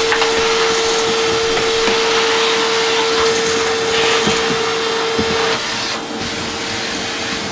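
Shop vacuum running steadily with a constant whine, sucking up dirt and debris from a floor. The whine drops away after about five and a half seconds while the vacuum keeps running.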